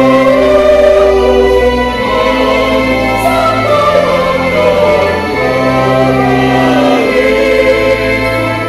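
Mixed church choir of men and women singing in parts, over held low notes that change every couple of seconds.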